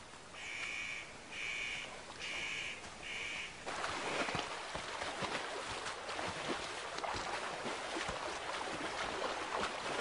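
A bird calls four times in even succession. Then, from about four seconds in, European bison wade through a shallow rocky river, their legs splashing through the water.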